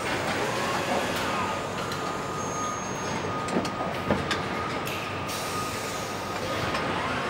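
Car assembly-line factory noise: a steady mechanical hum with a constant high whine, a few sharp clicks and clanks, and some faint wavering tones.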